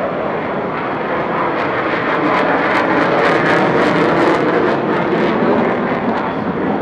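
Jet aircraft flying past, its engine noise swelling to a crackling peak about halfway through and then easing off.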